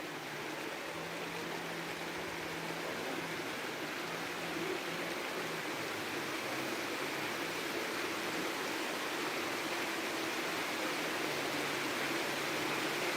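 Steady rain falling, growing slowly louder, with a faint low hum underneath.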